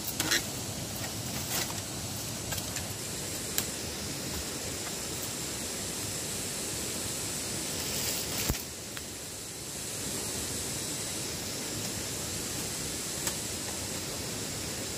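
Woven bamboo lattice panels knocking and clattering as they are handled, a few scattered sharp knocks, the loudest just after the start and about eight and a half seconds in, over a steady outdoor hiss.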